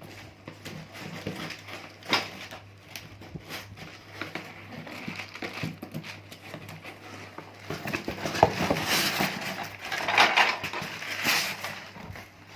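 Cardboard box and packaging rustling and scraping as a gas stove is worked out of it by hand, with a few sharp knocks; the rustling grows louder about eight seconds in.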